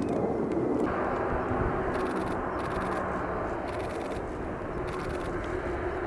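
Jet engine noise from Kawasaki T-4 jet trainers, a steady rushing sound that grows fuller about a second in.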